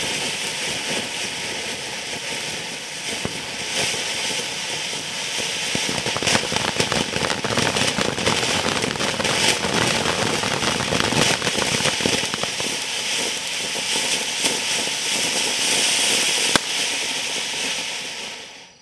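Dominator Jungle King, a 9-inch 'quiet' firework fountain, spraying sparks: a steady rushing hiss thick with fine crackling, which dies away at the end.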